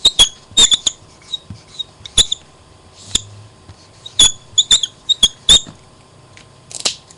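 Marker squeaking against a writing board in a series of short, sharp, high-pitched strokes, some in quick pairs: a word being written out letter by letter.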